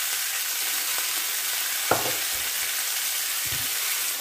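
Vegetable slices sizzling steadily in oil in a frying pan, with a single sharp knock about two seconds in.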